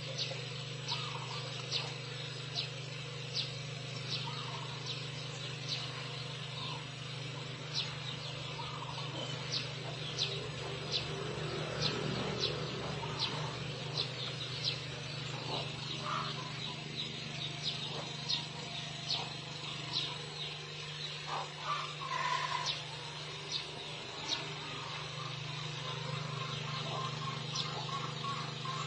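A bird chirping: one high chirp repeated evenly, about one and a half times a second, over a steady low hum.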